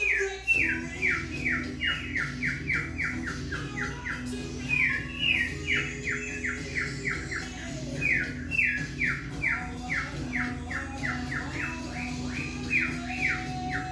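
Male cockatiel singing in fast runs of short, falling chirps, about four a second, with brief pauses between runs. A recorded song plays underneath.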